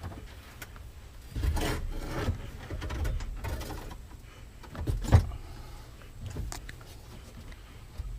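Scraping and rubbing of parts being handled during work on a UTV's battery, with a sharp knock about five seconds in and a few lighter clicks.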